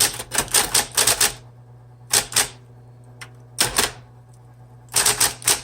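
1970s Smith Corona Deville electric typewriter being typed on. Quick runs of keystrokes at about six a second, over the steady hum of its running motor. Typing breaks off for a few seconds in the middle, where only a couple of single strikes sound, then resumes quickly near the end.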